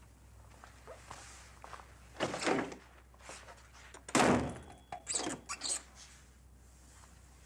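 A wooden office door being worked: a thunk about two seconds in, a louder door thunk about four seconds in, then a few short knocks.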